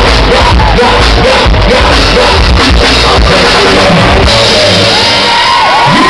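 Live dance-pop performance over loud PA speakers, with a pounding bass beat and shouted vocals into microphones. About four seconds in the beat drops out, leaving high, sliding yells and whoops.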